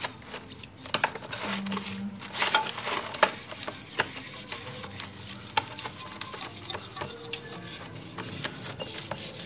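Brass incense burner being scrubbed with a metal scouring pad and salt to clear the black tarnish. Irregular rasping scrapes run throughout, with many small sharp clicks and knocks of metal against metal.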